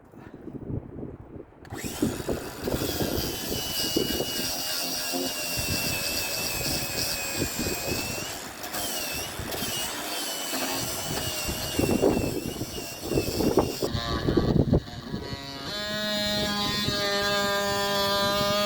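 A power tool working on log wood for about twelve seconds, its motor whine wavering under load. Near the end it runs free at a steady, higher-pitched hum.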